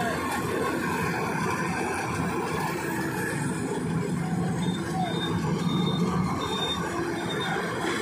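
Lovol RG108 Plus combine harvester running steadily as it cuts and threshes paddy: a dense mechanical rumble of engine and threshing machinery.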